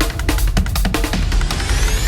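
Electronic background music with a steady drum beat; a rising sweep comes in near the end.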